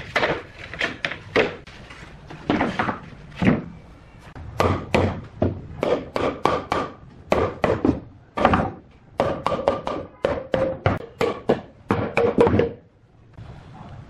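Solid-wood bed-frame rails and slats knocked and tapped together as they are fitted into the frame: a rapid run of sharp wooden knocks, several a second, that stops near the end.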